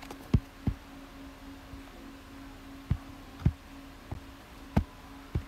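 About six soft thumps at irregular spacing from fingers tapping a tablet's touchscreen, over a steady low hum.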